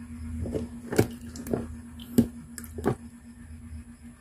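Wet trevally being moved and laid down on a wooden table: about six short, soft slaps and knocks over the first three seconds, with a faint steady hum underneath.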